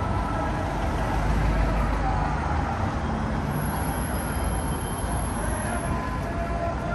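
City street traffic: vehicle engines running past in a steady low rumble, with the noise of the road around them.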